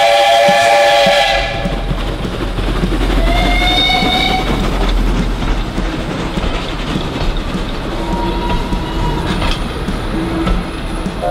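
Steam locomotive whistle blowing: a long blast in the first second and a half, a shorter blast about three and a half seconds in, and another starting right at the end, over a steady hiss of escaping steam.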